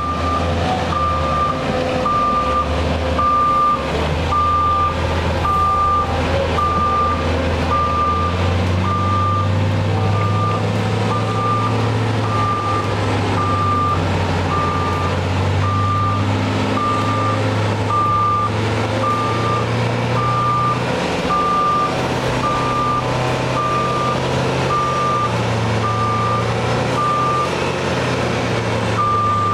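A heavy-machine backup alarm beeps steadily about once a second at one pitch over heavy diesel engines running and labouring, their pitch rising and falling, during a mud recovery.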